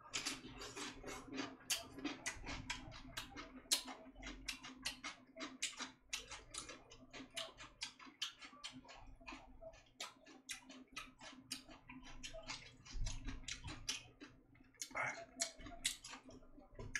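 A person chewing and eating close to the microphone: rapid, irregular clicks and crackles of mouth and food, several a second, over a steady low hum.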